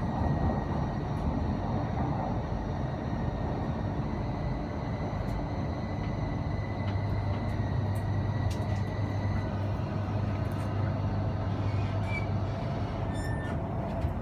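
Heathrow Express electric train running, heard from inside the passenger carriage: a steady rumble with thin, high electric whines over it. A deeper hum swells in the middle and eases off, and a few light clicks come near the end.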